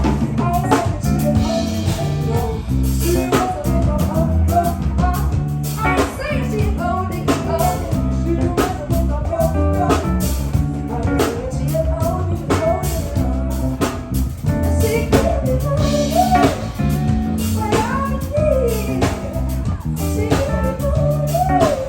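Live band playing: a drum kit keeping a steady beat under bass and guitar, with a lead melody line sliding in pitch over the top.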